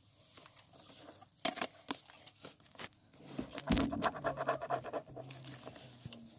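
Pen scratching on paper as lines are drawn along a ruler, with small taps and a low bump against the table a little past halfway.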